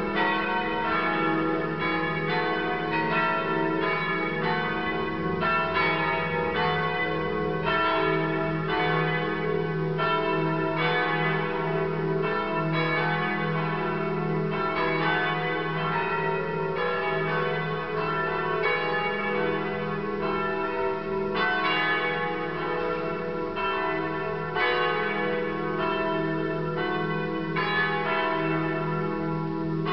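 The bells of Pistoia Cathedral pealing together, one stroke after another with no pause, their tones ringing on and overlapping into a continuous clangour.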